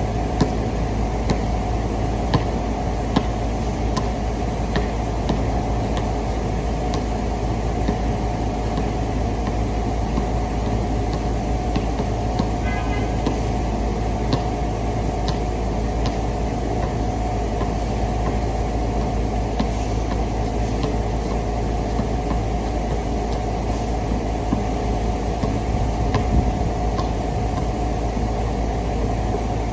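Vacuum cleaner running steadily as a car's interior is vacuumed, with scattered small clicks.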